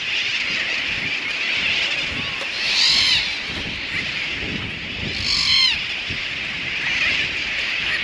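Seabirds calling: two short calls about two and a half seconds apart, each a quick run of rising-and-falling notes, over a steady high-pitched background noise.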